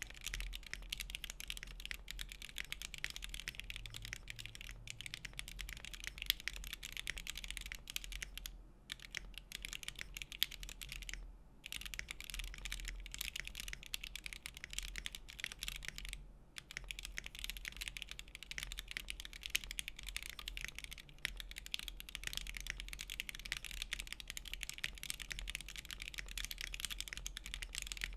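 Continuous typing on a Monokei x TGR Tomo custom mechanical keyboard, top-mounted with a full aluminium plate, stock Gateron CJ linear switches and NicePBT PBT keycaps: a dense stream of keystroke clacks. Typing stops briefly about 9, 11 and 16 seconds in.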